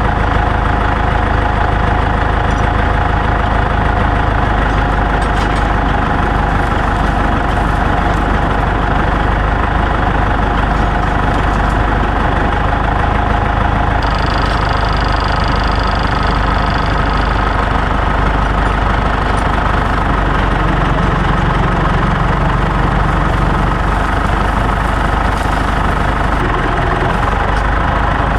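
A tractor engine running steadily, with a faint whine that steps up to a higher pitch about halfway through.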